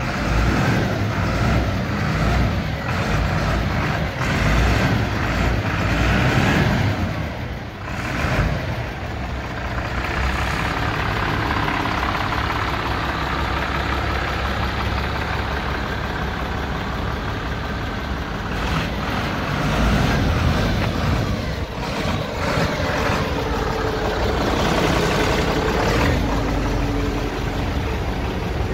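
Diesel engine of a Renault Premium 270 dCi refuse truck running, a steady rumble with a few rises and dips in level.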